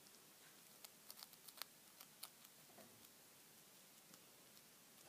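Near silence with a few faint, light clicks and scratches in the first half, from a hamster moving about in wood-shaving bedding at the cage bars.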